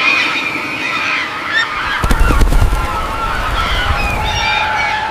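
Several birds calling at once, with many overlapping high, wavering calls. About two seconds in there is a brief low rumble with a few knocks, the loudest moment.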